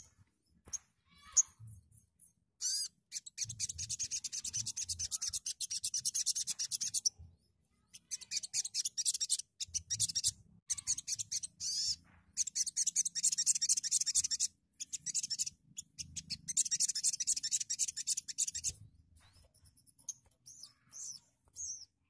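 Brown-throated sunbird (sogok ontong) singing in long runs of very fast, high, rasping chatter. It gives several runs of two to four seconds with short breaks between them, then a few scattered single notes near the end.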